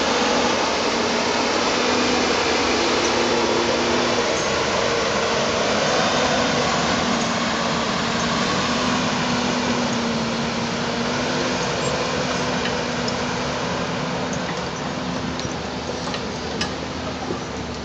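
Diesel engine of a loaded forestry forwarder running steadily as the machine drives off, growing fainter near the end as it moves away, with a few faint clicks.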